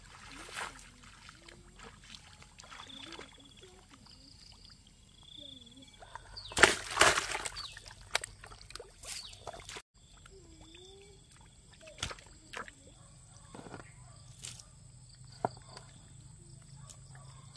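Water sloshing and splashing in irregular bursts, with a louder splash about halfway through.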